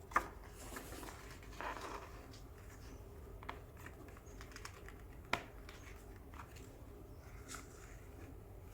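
Faint handling sounds of objects being moved on a table: soft rustles and light taps, with a sharp click just after the start and another about five seconds in.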